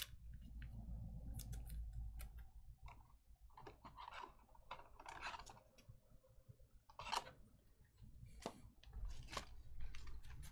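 Faint, scattered light clicks and taps, irregular and short, then trading cards being shuffled between the hands near the end.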